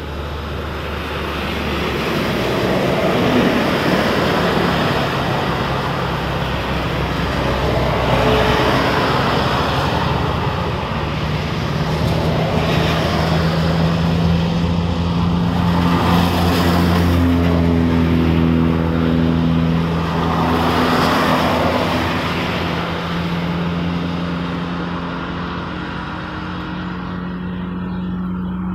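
Road traffic passing on a wet road: tyre hiss swells and fades several times as vehicles go by, and a steady low engine hum comes in about a third of the way through.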